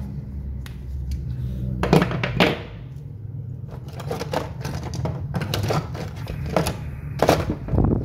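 A toothbrush scrubbing a small soldered circuit board: a series of short, scratchy brush strokes at irregular intervals, over a steady low hum.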